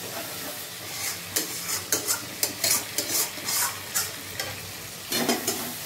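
Spatula stirring and scraping a thick masala gravy in a metal kadai, with the gravy sizzling over the gas flame. The strokes come about twice a second through the middle, with a louder stroke near the end.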